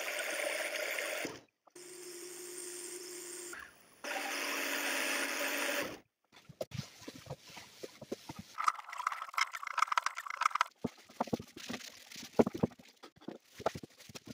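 Drill-powered homemade lathe spinning with a steady whir while a rag wipes finish onto the turning plywood drum, in short cut-together clips. Then irregular light wooden knocks and clatter as plywood stand pieces are handled and fitted together, with a brief scraping rub in the middle.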